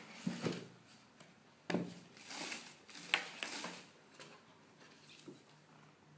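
Cardboard shoebox being handled: a few knocks and scrapes as the lid is taken off, then paper and packing rustling for a couple of seconds, growing quieter near the end.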